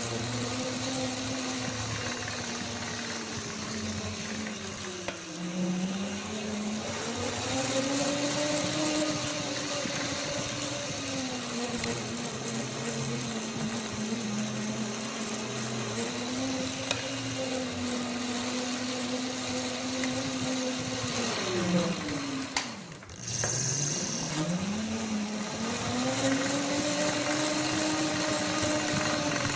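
A motor whining steadily, its pitch drifting up and down. About 23 seconds in it slows sharply, almost to a stop, then speeds back up.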